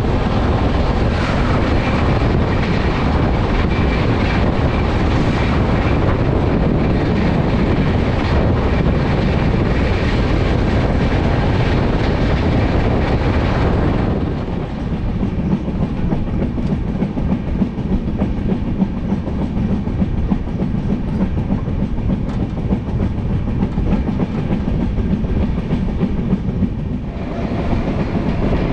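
Passenger train running at speed: a loud, steady rumble with the clickety-clack of wheels over the rails. About halfway through, the noise drops and turns duller, leaving a low steady hum underneath. It brightens again near the end.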